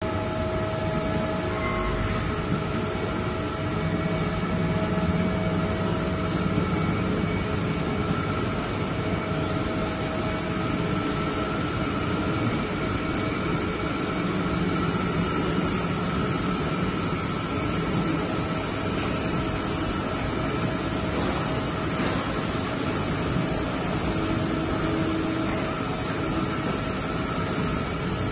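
Bevel gear lapping machine running steadily: a constant mechanical hum with a few faint steady tones over it.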